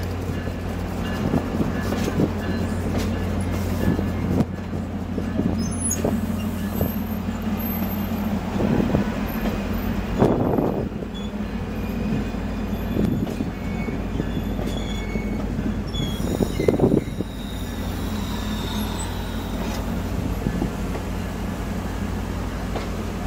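Stainless-steel passenger coaches rolling slowly past, their wheels clicking and knocking irregularly over the rail joints. Short high wheel squeals come in now and then, over a steady low hum.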